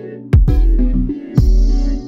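Chillwave electronic music: synthesizer chords over two deep bass-drum hits about a second apart, with a bright high shimmer entering on the second hit.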